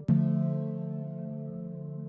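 Background music: a sustained chord struck just after the start, slowly fading.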